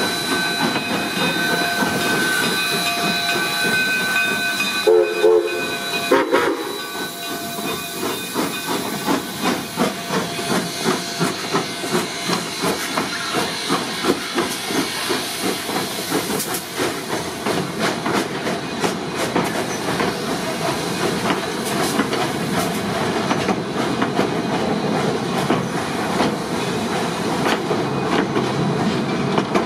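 Two narrow-gauge steam locomotives working together, D&RGW K-36 Mikados, coal fired. Steam hisses under a steady whistle tone for the first few seconds. From about eight seconds in, the exhaust settles into a regular chuffing beat of about two a second as the locomotives pull.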